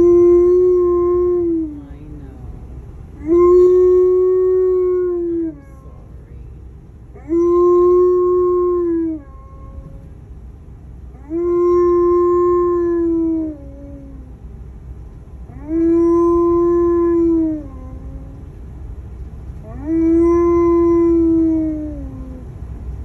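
Alaskan Malamute howling six times, each howl about two seconds long, held on one steady pitch and dropping away at its end, with low vehicle road rumble in the pauses.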